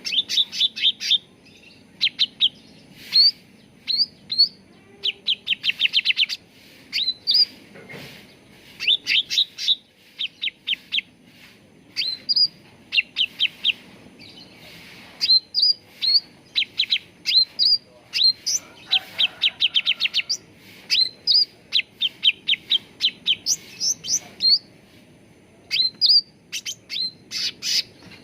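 Cucak ranting, a leafbird, singing: short phrases of rapid trilled notes mixed with quick rising whistles, repeated every second or so.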